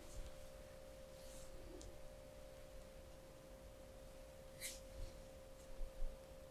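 A faint, steady single tone, with a few soft clicks, the clearest about four and a half seconds in.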